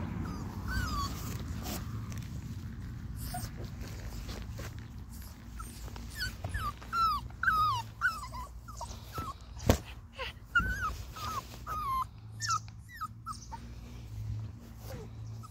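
Pomsky puppy whimpering and whining in a string of short, high-pitched, rising-and-falling cries, most of them in the second half. A single sharp knock about ten seconds in.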